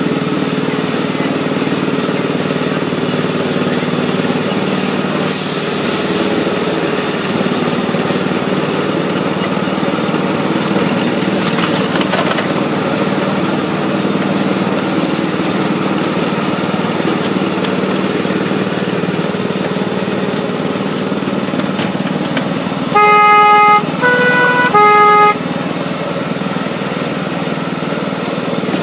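Small engine of a miniature-railway diesel-outline locomotive running steadily under way. Near the end its horn sounds three short notes, low, higher, low, sounded for a whistle board.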